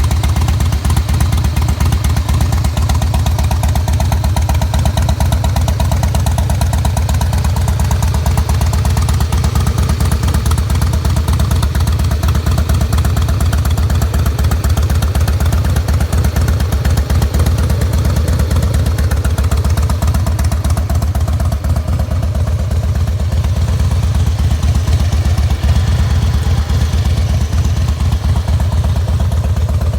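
Harley-Davidson Fat Boy's fuel-injected Twin Cam 88B V-twin engine idling steadily.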